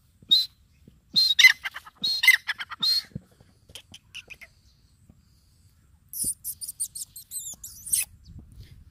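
A teetar partridge calling: a burst of loud, short, ringing notes in the first three seconds, then a few softer notes, and a fast run of high, chittering notes from about six to eight seconds in.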